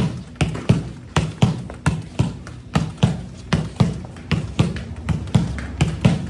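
A football being struck and bouncing on a hard tiled floor during a drill: a quick, even run of sharp taps, about two to three a second, over quiet background music.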